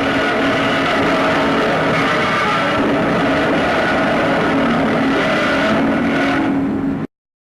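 Godzilla's 1954 roar, a long, loud, rasping screech with several pitched tones sounding together, made from a resin-coated glove dragged along the strings of a double bass and slowed down. It holds steady for about seven seconds and then cuts off abruptly.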